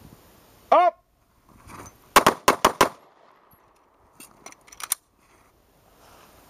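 9mm pistols firing a rapid string of about five shots in under a second, then a few quieter shots about two seconds later. About a second in, a short, loud shouted cue comes before the shots.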